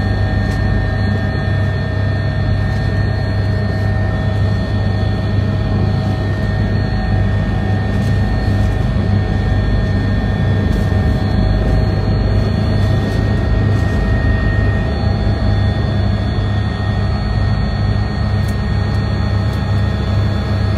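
Steady loud cabin noise of a helicopter in flight: a deep, even drone with several steady whining tones above it.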